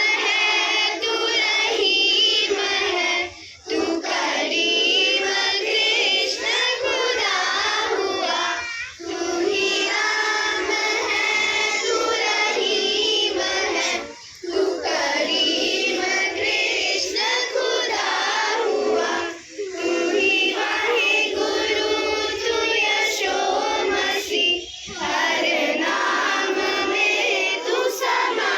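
A group of children singing a Hindi song together. The lines come in phrases with a short pause for breath about every five seconds.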